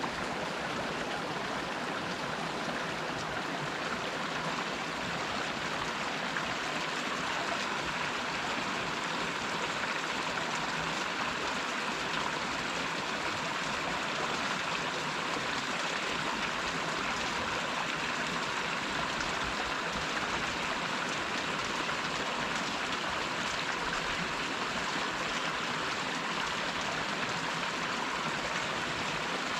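Small waterfall splashing and rushing steadily, an even hiss of falling and flowing water.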